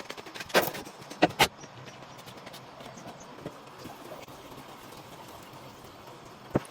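Sharp knocks: three within the first second and a half, and one more near the end, over a faint steady background.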